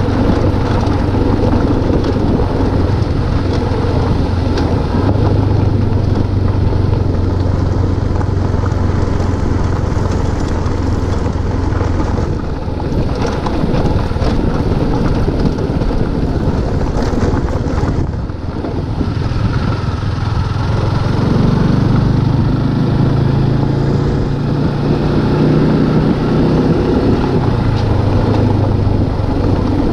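Motorcycle engine running under way, a steady low note that climbs to a higher pitch about two thirds through and drops back near the end, with two brief dips in level partway through.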